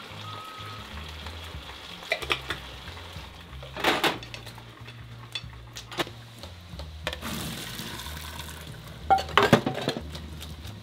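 Kitchen sink clatter: dishes, utensils and a plastic colander knocking and clinking against a stainless steel sink and bowls, loudest near the end. About seven seconds in there is a short rushing hiss as the spaghetti is drained into the colander.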